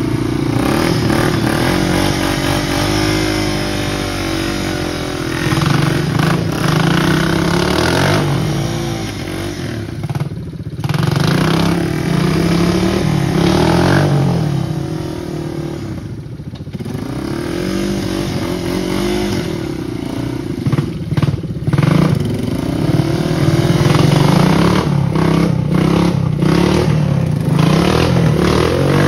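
ATV engines revving up and down under load as the quads spin their tyres through deep mud and water, the throttle dropping off briefly twice in the middle. Near the end mud and water splash and clatter as a wheel throws spray.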